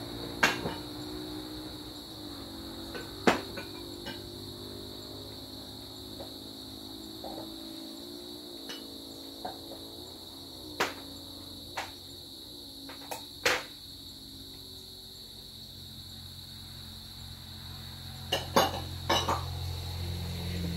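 Steady high-pitched insect drone over a low hum of highway traffic that swells near the end, with a scattering of sharp knocks, the loudest about half a second and three seconds in and a few close together near the end.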